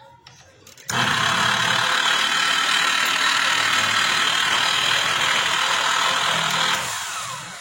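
Bosch GWS 22-180 angle grinder switched on about a second in and running at full speed for about six seconds with no disc load, then switched off and spinning down with a falling pitch. It is being test-run for a strange noise.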